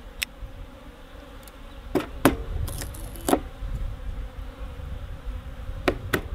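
Honeybees buzzing around an open hive, with several sharp clicks and knocks as the hive boxes and frames are worked with a metal hive tool.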